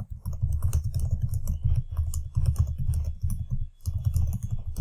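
Fast typing on a computer keyboard, a steady run of keystrokes with a brief pause a little before four seconds in.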